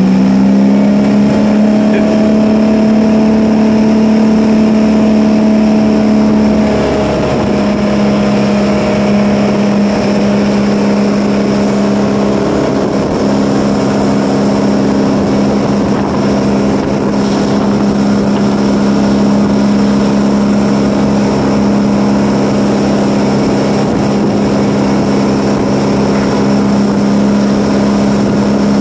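Inboard ski boat engine running steadily at speed while towing a skier, over a rush of wind and water. The engine note eases slightly about seven seconds in.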